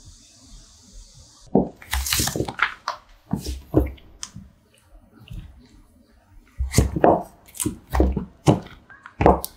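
Silicone ice pop mold being bent and peeled away from frozen ice cream bars, giving squelching, sucking creaks as the silicone pulls free. They come in two clusters, one starting about a second and a half in and another in the second half.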